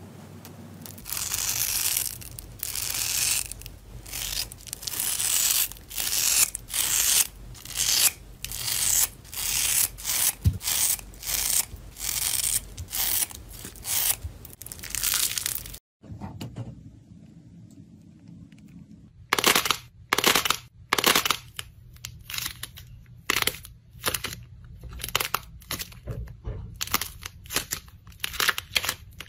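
Scissors snipping again and again through a spongy foam block and jelly-like slime pieces, a crisp cut about once or twice a second. After a short quieter pause, a run of sharp crunches and crackles as a clay-like slime is squeezed and pulled apart by hand.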